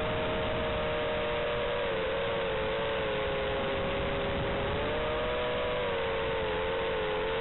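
Quadcopter's electric motors and propellers whining, heard through the drone's own onboard audio over its analog video link: a steady hum of two close tones that sag and rise slowly with throttle, under a constant hiss.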